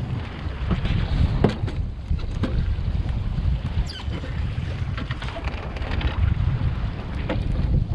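Wind buffeting the microphone with a heavy gusting rumble, and waves slapping and sloshing against the hull of a Drascombe Lugger lying hove-to. Scattered sharp knocks from gear aboard and a short rising squeak about halfway through.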